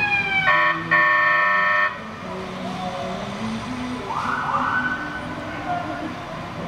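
Fire engine's siren winding down, then two loud horn blasts, a short one and one about a second long. A couple of seconds later the siren wails up twice and holds before fading, over the low running of the truck's engine.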